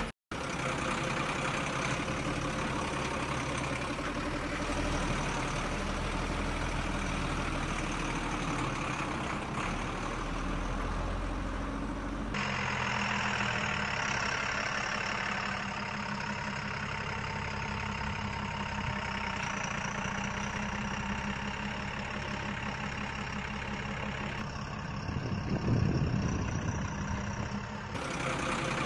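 Truck engine running steadily at idle, changing abruptly in tone about twelve seconds in and again near the end, with a brief louder rise shortly before the end.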